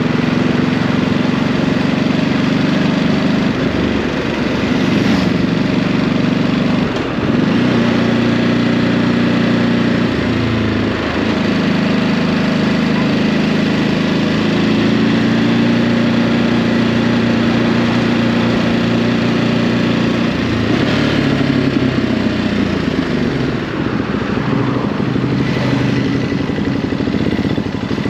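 Ducati Hypermotard 950's 937 cc Testastretta L-twin on its stock exhaust, running under way. Its note dips and climbs again several times with throttle and gear changes.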